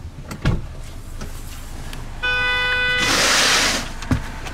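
A vehicle horn gives one steady toot just under a second long about two seconds in, followed at once by a loud burst of hissing. There is a dull thump shortly after the start and another near the end.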